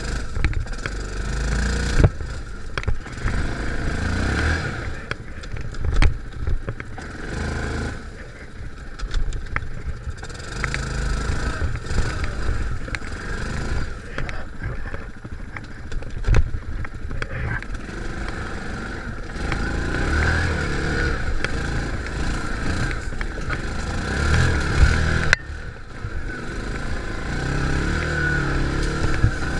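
Yamaha ATV engine running at low speed, the revs rising and falling, as the machine pushes through dense brush. Branches scrape and knock against the body and racks every few seconds.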